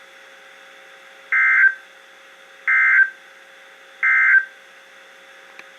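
Emergency Alert System end-of-message data bursts from a NOAA Weather Radio: three short buzzy bursts of digital data tones, each about a third of a second, a little over a second apart, over a faint steady hum. The three bursts mark the end of the alert.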